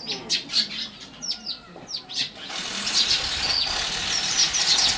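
Small birds chirping in quick, high, downward-falling notes. About halfway through, a louder steady rushing noise like a running motor or passing vehicle comes in and carries on under the chirps.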